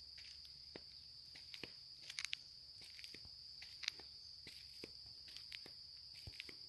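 Faint, steady high-pitched insect chorus, with scattered light crunching footsteps on the path.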